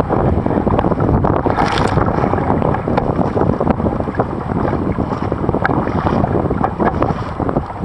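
Strong wind buffeting the microphone over the splashing of a sea kayak's paddle strokes and spray hitting the boat.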